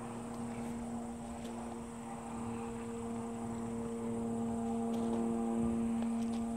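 A steady mechanical hum made of several held tones. It grows a little louder in the second half, and another tone joins about five seconds in.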